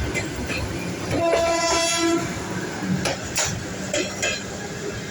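Electric suburban train sounding its horn once for about a second, over the train's running noise. A few sharp wheel knocks follow, clicking over rail joints.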